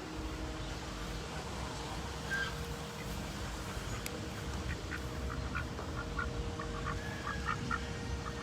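Pekin ducks quacking, a quickening run of short quacks from about halfway through.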